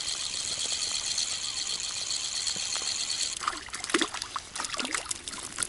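Water trickling and dripping over a steady high hiss. From about three seconds in comes a run of small, irregular splashes and drips.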